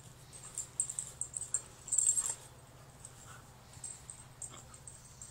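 Two dogs, an American Staffordshire terrier and a puppy, play-wrestling: short dog vocal sounds and scuffling in quick clusters, loudest about one and two seconds in.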